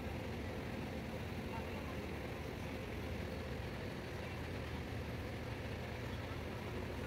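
Diesel engine of a Yutong coach running as the bus rolls slowly forward, a steady low rumble with no sharp events.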